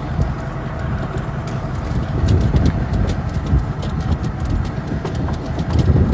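Low steady rumble of a vehicle running, with many light, irregular clicks of a dog's claws on a pickup truck's plastic bed liner as it turns about.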